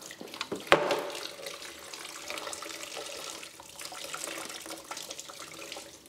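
Green engine coolant pouring in a steady stream from a radiator's outlet as the radiator is lifted out. There is a single sharp knock just under a second in.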